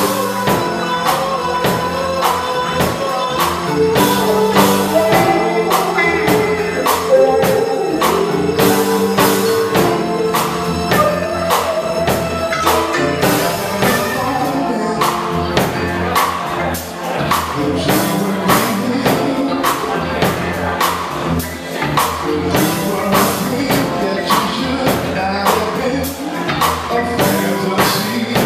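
Live funk band playing, with drum kit, electric bass and keyboards, and a man singing lead into a microphone over a steady beat.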